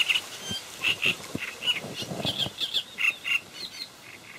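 A bird calling over and over in short, high chirps, many of them in pairs, a few each second.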